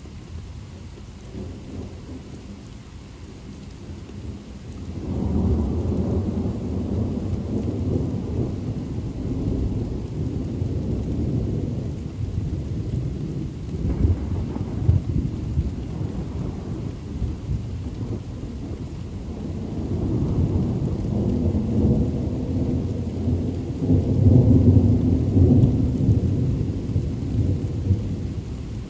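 Thunder rumbling in long low waves over steady rain. The rumble swells up about a fifth of the way in, with a sharper crack near the middle, and builds again to its loudest near the end.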